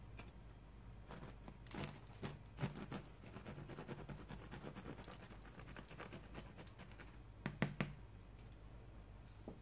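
Serrated bread knife sawing through the crust of a freshly baked corn bread loaf, giving faint, crackly scraping strokes. A few sharp clicks come about three-quarters of the way through.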